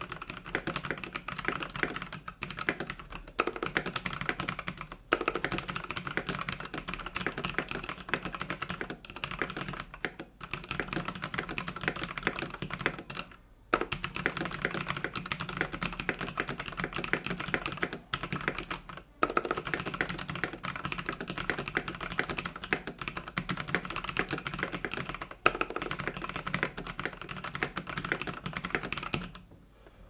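Keychron K12 60% hot-swap mechanical keyboard typed on fast and continuously: a dense stream of key clacks broken by a few brief pauses, from the stock board with its hollow, unfoamed case.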